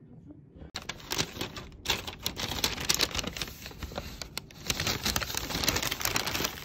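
Paper bag rustling and crinkling as a hand rummages inside it, with the plastic wrapping around the bread crackling. The rustling starts suddenly under a second in and goes on as a dense run of crisp crackles.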